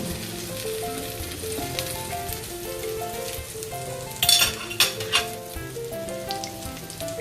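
Egg-dipped bread slices sizzling as they fry in a hot pan, under background music: a simple tune of held notes. Two brief, louder sharp noises come about four and five seconds in.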